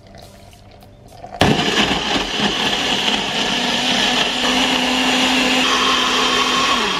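Personal bullet-style blender running, blending a thick shake of dates, hemp seeds, peanut butter and oat milk. It starts suddenly about a second and a half in, runs steadily, and slows as it winds down near the end.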